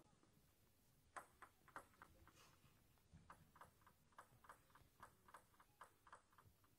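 A table tennis ball bounced repeatedly by hand before a serve, making light sharp clicks. The clicks start about a second in, settle into a steady rhythm of about three a second, and stop near the end.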